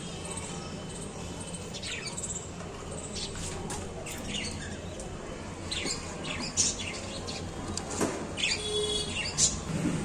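Budgerigars chirping: scattered short high chirps, with a denser chattering call about eight and a half seconds in.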